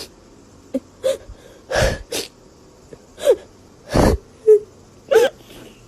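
A parrot making a string of short, breathy squawks and clicks, a few of them with quick warbling pitch loops.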